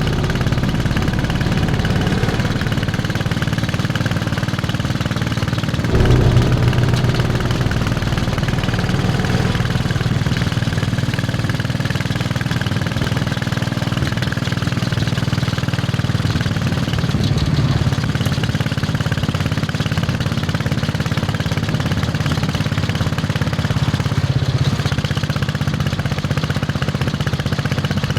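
Royal Enfield Bullet 500's single-cylinder four-stroke engine thumping steadily under way. It gets briefly louder about six seconds in, with smaller changes in engine speed later on.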